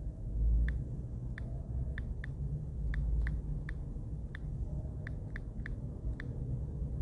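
About fourteen quick, uneven ticks of keys being tapped on a smartphone's on-screen keyboard as a password is typed, over a low background rumble.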